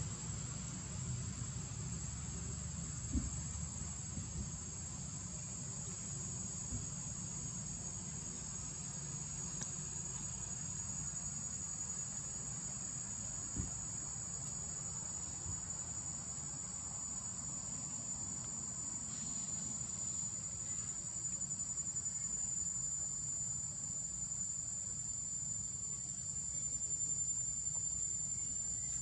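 A steady, high-pitched insect chorus, with a low rumble underneath.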